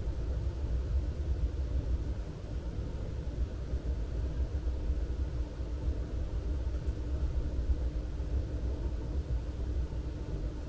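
Low, uneven outdoor rumble that flickers in level, with a faint steady hum underneath.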